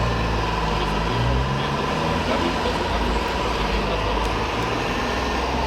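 Radio-controlled model truck running: a steady engine-like hum with a thin, even high whine throughout.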